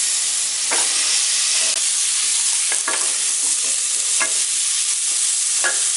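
Cubed potatoes and green capsicum sizzling steadily in oil in a non-stick kadai, while a wooden spatula stirs and scrapes through them in several strokes.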